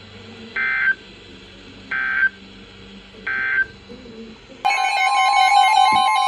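Three short bursts of Emergency Alert System SAME data tones, each about a third of a second, spaced about a second and a half apart: the end-of-message code that closes a weather radio warning. About four and a half seconds in, a louder recording cuts in with a steady high tone and music.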